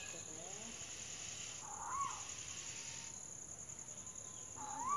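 Steady high insect chirring, with a bird giving a short rising-and-falling call twice, about two seconds in and again at the end. These are the bird's alarm calls at a cobra on the ground.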